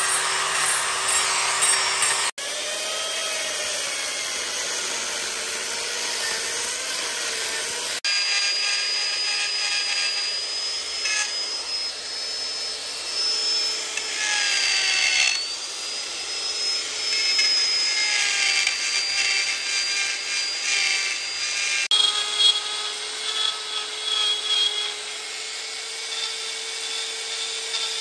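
Electric die grinders with carving burrs running at high speed against wood: a steady high-pitched whine over a grinding rasp, the pitch dipping briefly as the bit bites in. The sound changes abruptly a few times where one clip gives way to the next.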